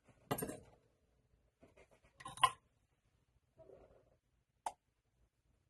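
A few short scrapes from a small hand tool cleaning up around the edges of a freshly reflowed LED emitter on its board, the loudest about two and a half seconds in, then a single sharp click near the end.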